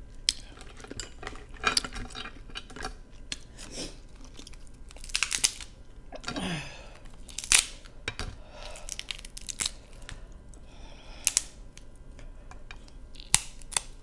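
Snow crab legs being cracked and the shell pulled apart by hand close to the microphone: a scattered series of sharp snaps and crackles of shell, with some chewing between them.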